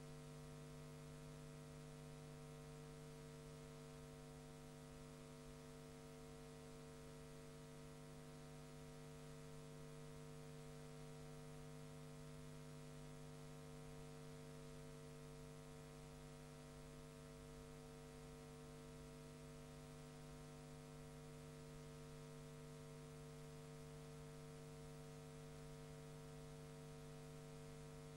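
Near silence: a faint, steady electrical hum with hiss and no other sound.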